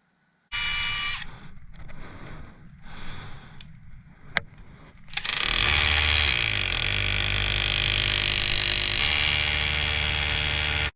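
Power drill running, first in short uneven spurts, then steadily for about five seconds before cutting off, boring into a brick wall.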